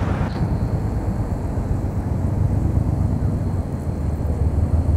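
Low, steady rumble of an approaching Metro-North Bombardier M7A electric multiple-unit train on the tracks.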